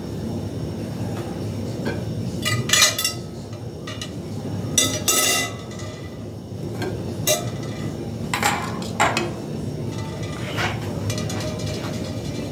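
Irregular clinks and clatter of dishes and cutlery, a few short strikes spaced unevenly, over a steady low background hum.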